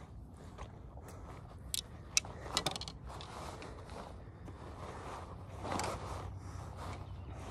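Several sharp clicks and scrapes from handling gear, clustered about two seconds in, over a steady low background rumble.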